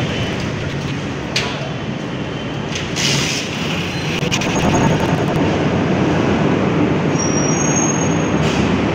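Steady, loud background din of an underground parking garage, with a short click about a second and a half in. The din grows louder about halfway through.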